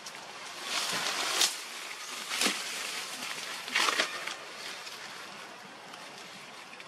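Dry leaf litter rustling in three short bursts, about a second, two and a half seconds and four seconds in, over a steady low hiss.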